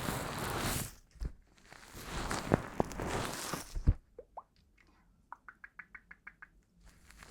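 Crackling, rain-like hiss with a few sharp clicks, which stops about four seconds in. It gives way to water-drop plops: a few single drops, then a quick run of about a dozen drops, roughly seven a second.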